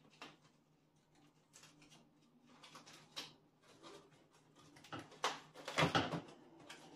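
Cardboard box being opened by hand: fingernails scratching and picking at the packing tape on the top flaps, with scattered scrapes and rustles that grow louder near the end as the flap comes loose.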